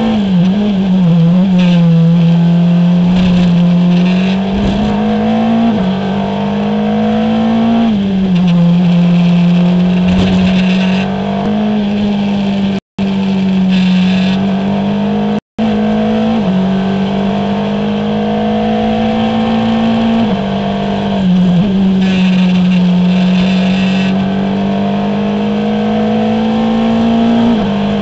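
Formula Renault 2.0 single-seater's 2.0-litre four-cylinder engine at racing speed, heard onboard: the note climbs steadily under power and drops suddenly at each gearshift or lift, several times over. The sound cuts out for an instant twice near the middle.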